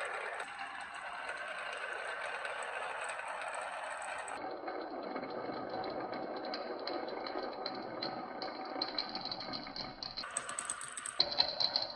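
Marbles rolling and clattering along a marble run track, a continuous rattle full of small ticks. The sound changes abruptly about four seconds in and again near the end.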